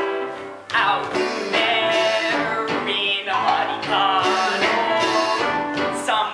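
Musical-theatre song: instrumental accompaniment with a singing voice, dipping briefly less than a second in.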